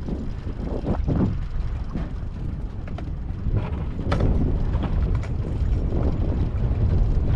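Boat motor running steadily at trolling speed, with wind buffeting the microphone and a few light knocks.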